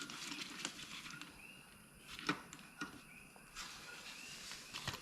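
Faint, short chirps repeating every second or so, typical of crickets at night, with a few sharp clicks from tools and engine parts being handled.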